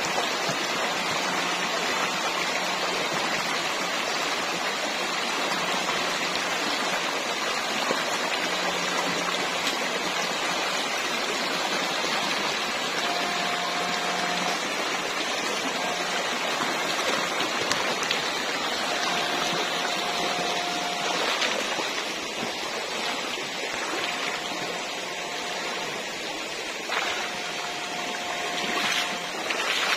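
Shallow rocky stream rushing over stones, a steady wash of water. From about halfway on, a few short steady tones of a second or two come and go over it.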